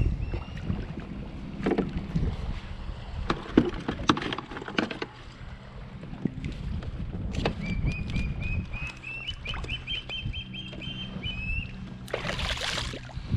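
Water splashing and knocks as a hooked grouper is handled beside a kayak. A short, loud rush of splashing comes near the end as the fish is hauled out of the water.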